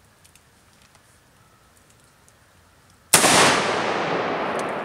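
A single shot from an M1903 Springfield bolt-action rifle about three seconds in, sudden and loud, its report echoing away for well over a second.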